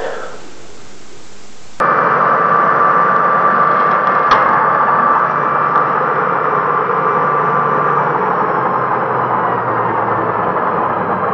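Electric mitre saw running with its blade spinning free: a loud, steady whine over a rushing noise that starts abruptly about two seconds in, with a single sharp click a couple of seconds later.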